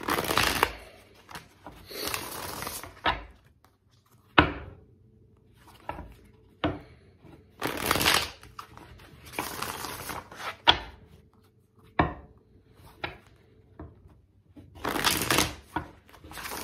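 A tarot deck being shuffled by hand in about five short bursts of card noise, with sharp single knocks from the cards against the table in between.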